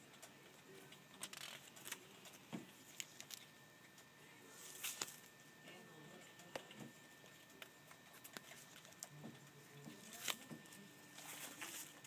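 Faint rustling of sheer fabric swatches on their card pages being handled and turned in a sample book: scattered soft taps and clicks, with a few brief swishes as pages move.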